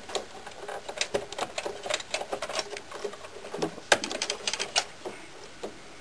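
Irregular clicks and rattles of cable connectors and wiring being worked loose inside an oscilloscope chassis.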